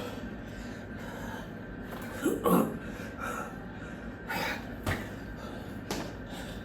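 A man breathing hard between burpee reps, with a loud gasp about two and a half seconds in and a noisy exhale a couple of seconds later. Two short, sharp thumps follow near the end.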